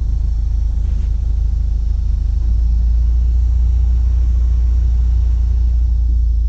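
Heater blower fan running on its lowest setting inside a 2018 Subaru WRX's cabin, over a steady low rumble that grows a little louder about two and a half seconds in.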